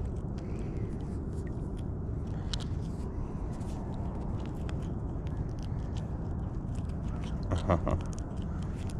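Faint small clicks and scrapes of fingers working a jig hook out of a small crappie's mouth, over a steady low rumble.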